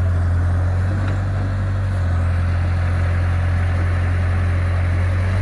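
Old Caterpillar excavator's diesel engine running steadily with a deep, even hum as the machine crawls on its tracks through shallow floodwater.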